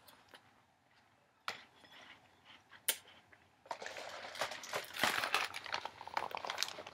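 Cardboard fruit-bar box rustling and crinkling as it is picked up and handled, after a couple of sharp clicks.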